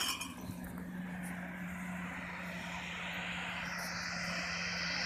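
Engine of a Cessna Caravan turboprop approaching, its hiss and whine slowly growing louder. A sharp knock right at the start.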